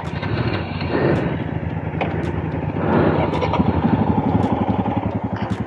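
Motorcycle engine running at low revs, settling into a quick, even pulsing beat about halfway through.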